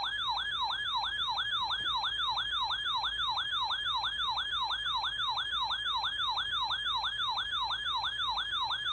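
Emergency Alert System attention tone: a loud electronic siren-like warble that sweeps rapidly up and down about three times a second, following the alert's data-burst header.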